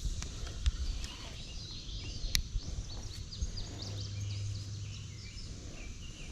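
Outdoor creek ambience: many short, high chirps, likely small birds, over a low rumble, with a few sharp clicks or knocks, the loudest about two and a half seconds in.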